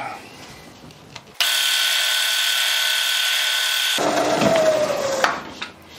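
Milling machine spindle starting abruptly and running with a steady gear whine, in reverse to back the M8 tap out of the hole. A little after halfway it is switched off and a single whine falls in pitch as the spindle runs down.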